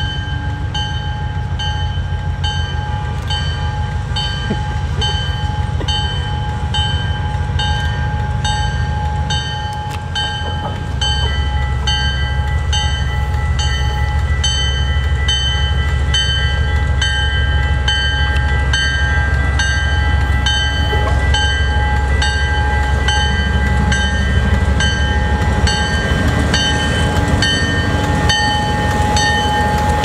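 CN freight train led by a GE C40-8M and an EMD SD40-2W diesel locomotive approaching, its horn held in one long steady blast. The engine rumble grows louder about ten seconds in as the locomotives draw near.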